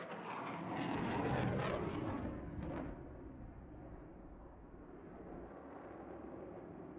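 Jet aircraft flying past in a display pass: a roar, loudest in the first three seconds, then fading to a duller rumble.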